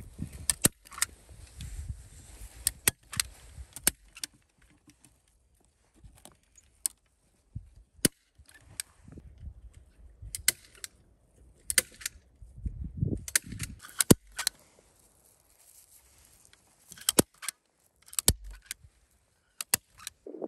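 Hand staple gun firing staples through mesh netting into a wooden post: a series of sharp snaps, often in quick pairs, with rustling and handling noise between them.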